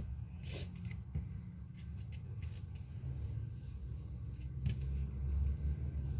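Hands shaping cold porcelain clay: a few light taps and rubbing sounds over a steady low rumble.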